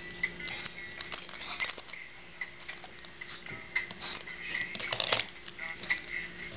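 Keys, a key fob and a small metal pendant jingling and clicking on split key rings as fingers work a ring open. The sound is a run of small, irregular metallic clicks and scrapes.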